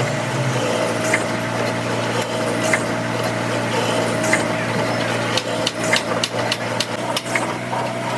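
A machine motor running steadily, with a series of sharp taps and clicks, thickest about five to seven and a half seconds in.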